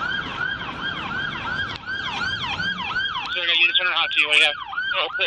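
Emergency vehicle sirens on a yelp cycle, rising and falling about three times a second. About three seconds in a second, lower siren joins with a faster warble.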